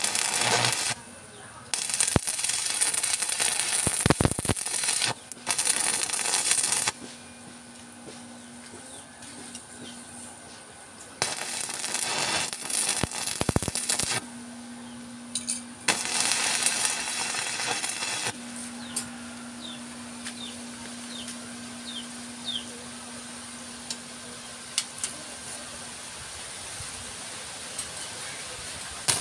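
Electric arc welding on steel rod: five crackling, sizzling bursts, each one to three seconds long, with a steady low hum in the gaps between them.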